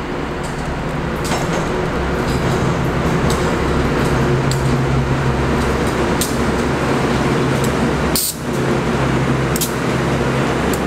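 Three MTA R156 diesel locomotives running through a subway station: a steady deep diesel drone that grows louder over the first few seconds as they pull up alongside, with scattered sharp clicks.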